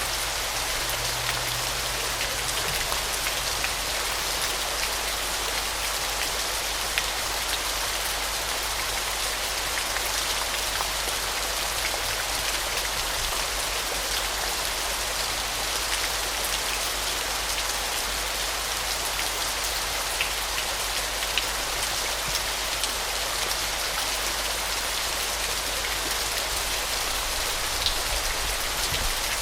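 Waterfall: a steady, dense hiss of falling water splashing, with fine droplet patters throughout.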